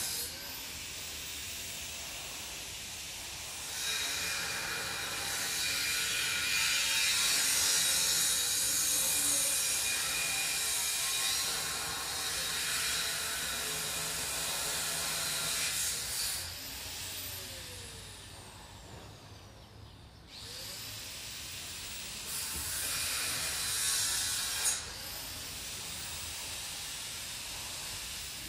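Wind rushing through the leaves of the park's trees, a steady hiss that swells and fades with the gusts.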